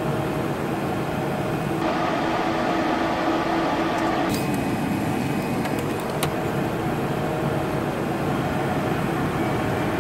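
Cessna Citation XLS's twin turbofan engines at takeoff power, heard from the cockpit as a steady, even rush of engine and airframe noise during the takeoff roll.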